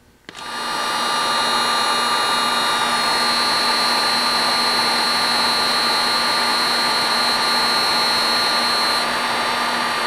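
Electric heat gun blowing hot air steadily to shrink heat-shrink butt connectors on spliced wires. It comes up to speed in under a second and runs as an even rush of air with a steady whine.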